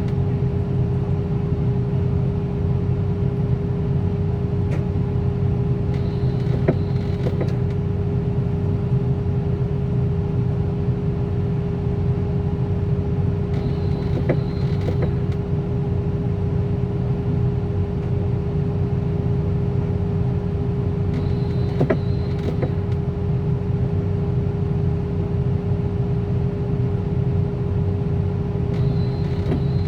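Engine idling steadily, with a brief higher sound that comes back about every seven to eight seconds.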